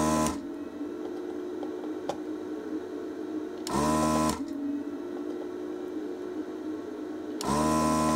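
Desoldering station's vacuum pump running in three short bursts about four seconds apart, sucking molten solder off the voltage regulator's pins to free it from the board.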